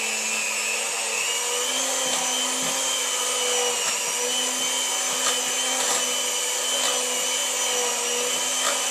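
Electric mixer running steadily, its beaters whisking cake batter of creamed butter, sugar, egg and flour in a bowl; its hum steps up slightly in pitch about a second and a half in.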